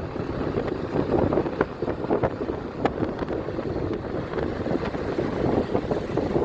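Wind buffeting a phone microphone, a rough noise that swells and drops in uneven gusts.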